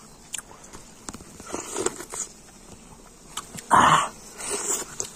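Biting into and chewing a piece of bee comb: small wet clicks and crunches, with one loud bite nearly four seconds in.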